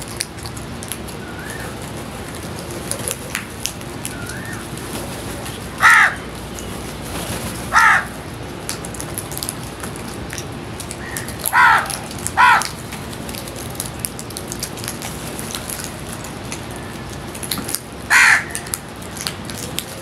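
House crows cawing: five loud caws, the first about six seconds in, two close together around twelve seconds and the last near the end, over steady background noise.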